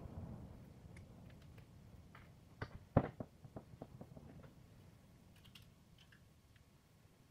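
Clicks and taps of pliers and wire pieces being handled on a wooden floor, with one sharp clack about three seconds in followed by a quick run of lighter clicks.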